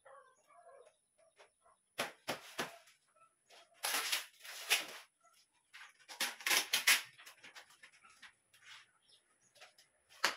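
Plastic shelf panels and metal poles of a shoe rack knocking and clicking together as the rack is assembled: a scatter of sharp clacks and rattles, bunched about two, four and six to seven seconds in, with quieter handling rustle between.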